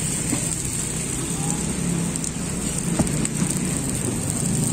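Beaten egg and tapioca cubes sizzling in the oiled cups of a cilor mould: a steady, rain-like crackle with a low hum underneath and a couple of light clicks.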